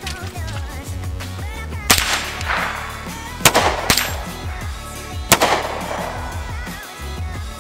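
Four handgun shots: one about two seconds in, two in quick succession about half a second apart around three and a half seconds, and one more about five seconds in, each with a short echo. Background music with a steady bass line plays under them.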